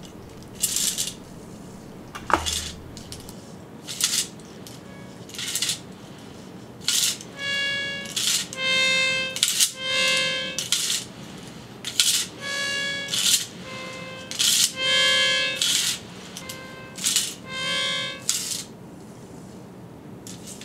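Plastic whirligig disc spun on a string loop, surging about once a second as the string is pulled and released. At first each pull gives only a whoosh of air. From about seven seconds in, the disc's built-in reed also hums a steady tone with each surge.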